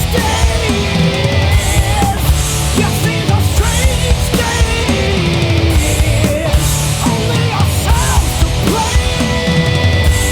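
Loud rock song without words: a dense passage of heavy bass and drums, with a melody line sliding up and down in pitch over it.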